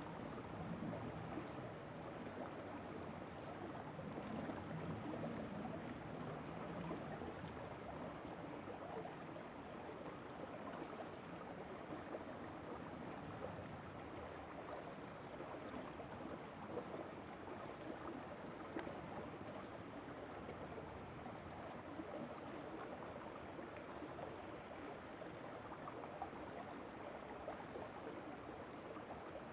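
River water flowing over stones, a steady rushing and gurgling.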